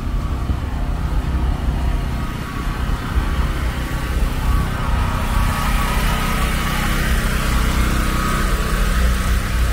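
A motor running steadily with a constant hum, growing louder about halfway through, over wind rumbling on the microphone.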